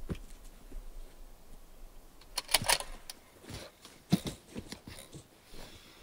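Handling sounds from a shooter getting down prone on a mat behind a rifle: rustling with irregular knocks and clicks. The loudest are a quick cluster of knocks about two and a half seconds in and a single sharp knock about four seconds in.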